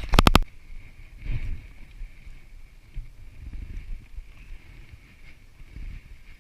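Low, uneven rumble of wind and water around a fishing kayak, opening with a quick run of about six sharp clicks.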